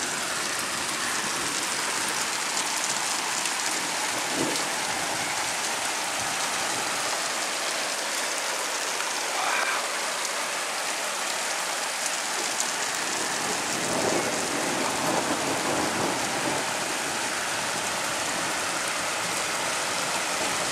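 Hail and rain falling hard: a dense, steady patter of many small impacts on roofs and surfaces.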